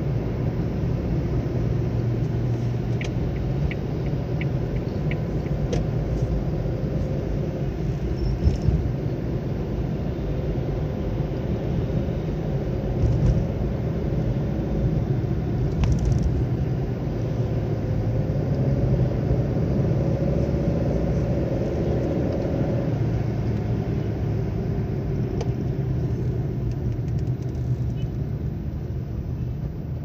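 A car's engine and tyre noise heard from inside the cabin while driving in city traffic: a steady low rumble. A short run of faint ticks comes about three seconds in, and a few brief knocks follow later.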